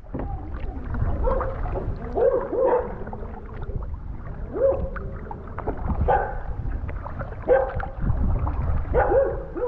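Kayak being paddled with wind rumbling on the microphone, a few paddle knocks, and a string of short rising-and-falling calls about one every second or two.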